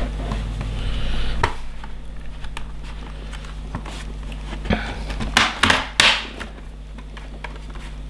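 Plastic snap-fit clips of an HP 15-DA laptop's case releasing as the chassis is prised apart by hand: a single click about one and a half seconds in, then a quick cluster of sharp clicks and cracks about five to six seconds in.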